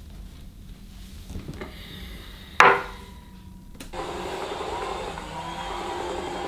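A single sharp knock with a brief ringing, a hard object set down on a wooden table, about two and a half seconds in. From about four seconds in, a steady muffled noise follows.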